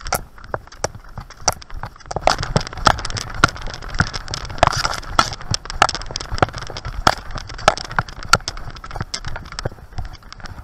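Cross-country skis and poles on packed snow: a crunching, scraping glide over a rapid, irregular run of sharp clicks and taps, busiest through the middle.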